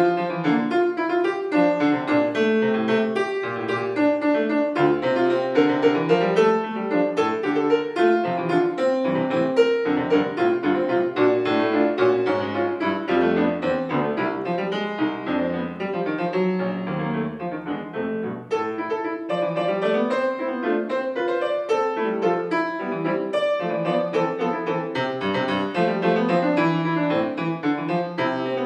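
C. Bechstein concert grand piano played solo in a fast classical passage, a dense unbroken stream of notes across the low and middle range.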